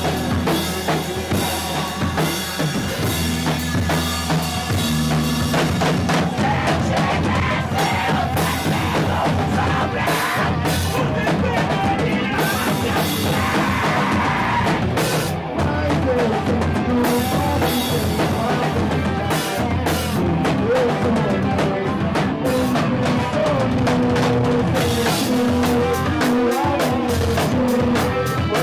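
A rock band playing live and loud, with a drum kit (bass drum and cymbals) prominent under electric guitar.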